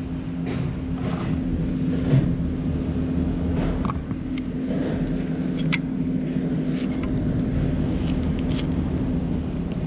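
Steady low mechanical hum with a constant droning tone, with a few faint clicks over it.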